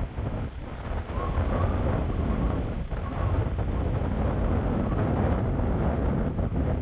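Strong wind buffeting the phone's microphone, a dense low rumble that swells and dips.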